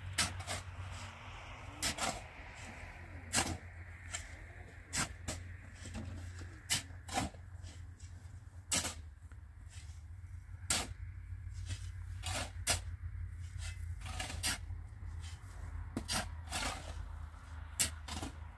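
Repeated sharp knocks on wood at irregular spacing, roughly one a second, over a low steady hum.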